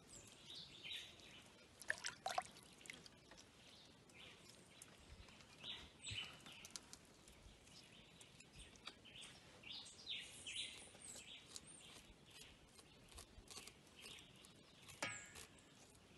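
Faint, scattered bird chirps over quiet background noise, with a few soft clicks.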